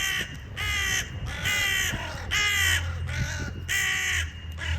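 Crows cawing over and over, about six or seven loud harsh caws in steady succession.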